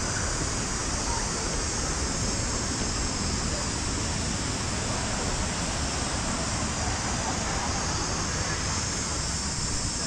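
Steady, even rushing outdoor noise with no distinct events.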